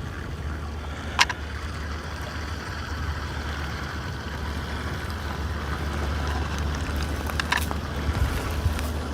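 Mini amphibious RC car running on lake water, its small electric motor and paddle wheels churning the water, under a steady low wind rumble on the microphone. Two short clicks, about a second in and again about seven and a half seconds in.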